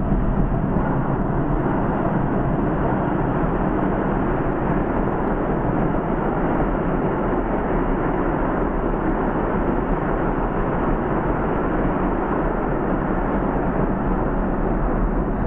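A steady, even rushing noise with a low rumble underneath, unbroken throughout.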